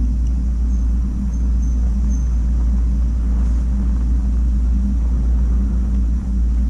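Steady low rumble of wind buffeting an action camera's microphone, held at an even level throughout.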